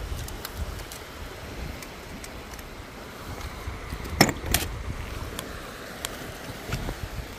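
Wind rumbling steadily on the microphone over a tidal flat at low tide, with scattered small clicks and two sharp knocks about four seconds in as the metal tongs and a caught conch knock against the mesh catch container.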